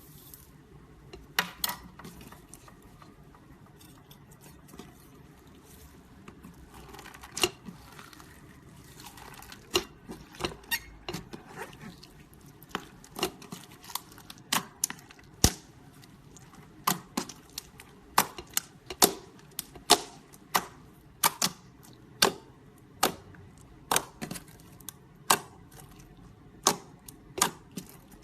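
Clear slime being kneaded and pressed with glitter mixed in, making sharp popping clicks as trapped air bursts. The pops are scattered at first, then come steadily about one or two a second from about halfway.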